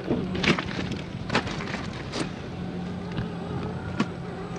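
Radio-controlled scale crawler truck's electric motor whining steadily, with four sharp knocks and clatters from the truck as it is driven.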